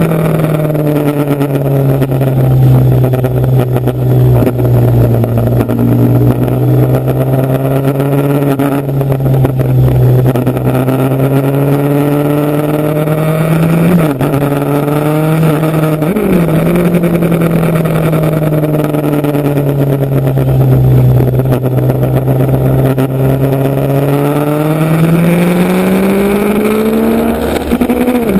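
Motorcycle engine running while under way. Its pitch eases down at first and then holds steady, with two brief sharp breaks about halfway through, and climbs again near the end as it speeds up.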